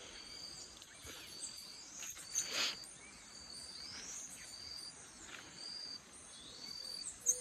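Birds calling in the open with short sweeping whistled notes, over a high steady chirp that repeats about once a second; one louder call comes about two and a half seconds in.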